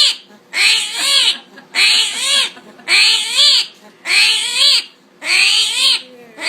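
An animal calling loudly over and over, about six harsh calls each rising then falling in pitch, in an even rhythm of roughly one call a second.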